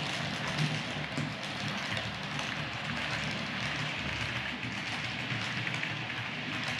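Piko H0-scale SU45 diesel model locomotive and its double-deck coaches running on layout track: a steady rolling rattle of wheels on rails over a low motor hum.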